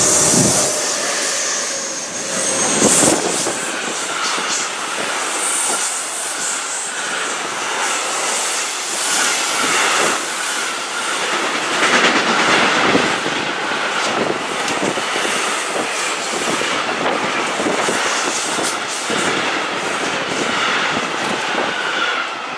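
Electric locomotive and an intermodal freight train of pocket wagons carrying lorry trailers rolling through: steady rolling noise with clicking of wheels over rail joints and some thin wheel squeal. It is loudest in the first few seconds as the locomotive goes by, then the wagons keep clattering past.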